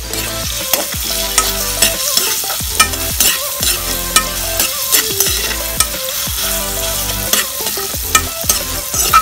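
Chopped pork fat sizzling in hot oil in a steel wok while a metal ladle stirs and scrapes it, clinking against the pan many times. The fat is being rendered to release its own oil.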